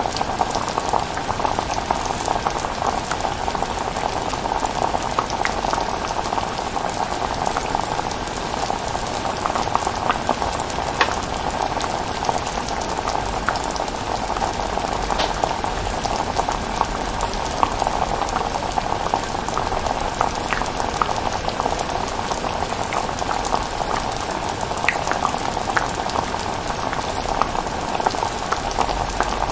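Pot of chilli bubbling steadily as it cooks, with many small pops throughout.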